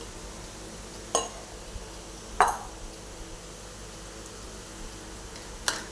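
Kitchen bowls and utensils knocking and clinking as they are handled: three short sharp knocks, about one, two and a half and nearly six seconds in, the middle one the loudest, over a steady faint hiss.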